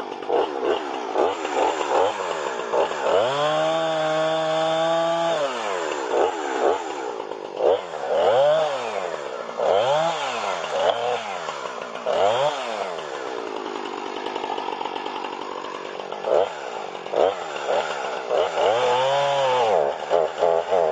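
Husqvarna 455 Rancher two-stroke chainsaw running and being revved: held at high revs for a couple of seconds, then several quick blips of the throttle, back to idle, and revved once more near the end. The engine is warm and running fine for now, on a brand-new saw that the owner says later starves for fuel and dies.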